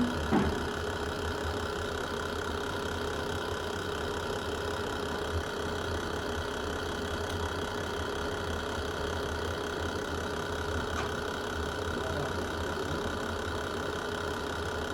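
Wood fire burning in a fireplace: a steady low rumble with a few sharp crackling pops, the loudest just after the start and a couple more scattered later.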